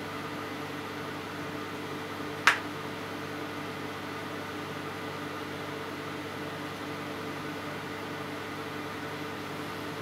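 Microwave oven running, a steady hum with its fan noise as it heats a microwave boiling cooker. One sharp click about two and a half seconds in.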